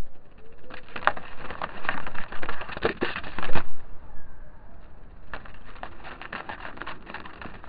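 A crushed-stock Play Dead deck of playing cards being sprung in an Anaconda dribble: a fast run of card edges clicking off the thumb, in two runs with a quieter gap about halfway through. The deck is new and still soft.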